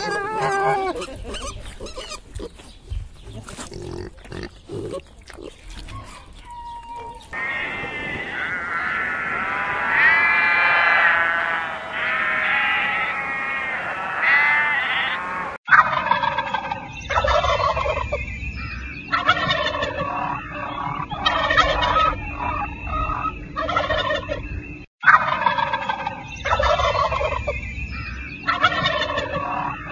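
Piglets grunting and squealing for the first several seconds. Then comes a sheep bleating several times in wavering calls. From about halfway on, a domestic turkey gobbles again and again in quick rattling calls.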